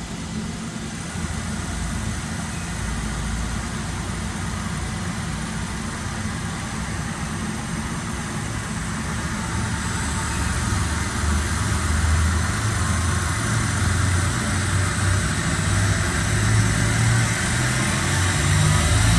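Omniturn GT-75 CNC gang lathe running with its slide moving the cutoff tool: a steady mechanical hum that grows somewhat louder about halfway through, its low tones shifting as it goes.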